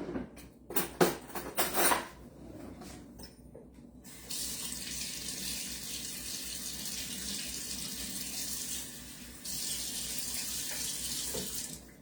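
A few knocks, then a kitchen tap running cold water, turned on about four seconds in, easing off briefly and running again before it is shut off suddenly near the end. The water is for a cornstarch slurry.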